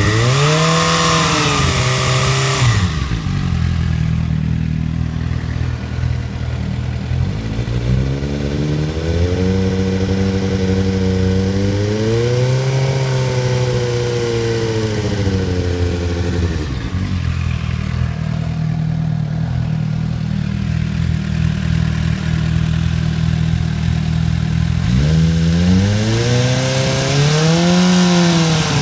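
Suzuki GSR 750's inline-four engine idling and revved three times: a quick blip at the start, a longer rev held around 4,000 rpm in the middle, and another rev near the end. The owner suspects a ticking from the valve train, which he says is most noticeable at 3,000–4,000 rpm.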